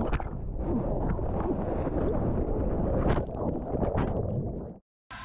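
Strong wind buffeting the camera's microphone while wing-foiling on the sea: a dense, loud rush with a few sharp knocks. It cuts off abruptly near the end.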